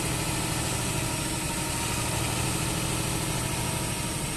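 Heavy lorry's diesel engine running steadily at low revs, a deep even idle.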